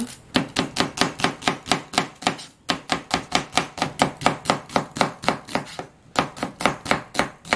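Kitchen knife slicing an onion on a plastic cutting board: quick, even chops about four or five a second, with two brief pauses.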